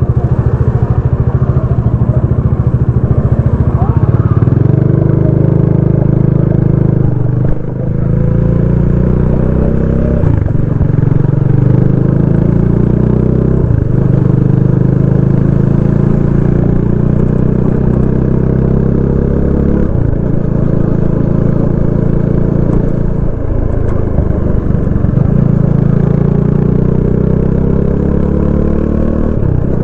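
Stock exhaust of a 2022 Dominar 400 UG's single-cylinder engine, ridden away slowly and then accelerated through the gears. The revs climb and drop back several times at the shifts before settling into a steady cruise.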